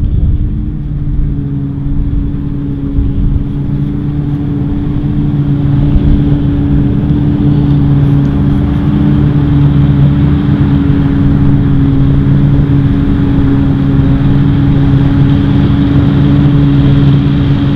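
New Holland FR9060 self-propelled forage harvester working, chopping maize and blowing it into a trailer alongside a tractor: a steady engine drone with a low hum. It grows louder over the first several seconds, then holds steady.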